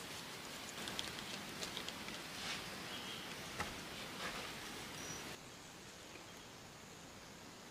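Faint rustling and scattered light crackles of hands working moss and forest debris, over a quiet steady outdoor hiss. The crackles stop about five seconds in, leaving only the quieter hiss.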